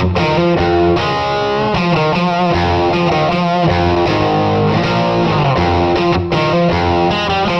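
Background music: distorted electric guitar with notes that bend and slide, over a steady bass line.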